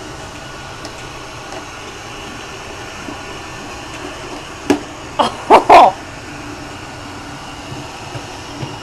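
Roomba robot vacuum running with a steady whirring hum. About five seconds in there are four short, loud voice sounds close together, ending in an exclaimed "Oh!".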